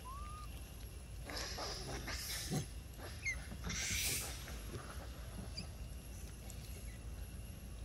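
A troop of long-tailed macaques with infants: two short, faint chirping calls, one right at the start and one about three seconds in, plus two brief noisy scuffles about a second and a half in and around four seconds.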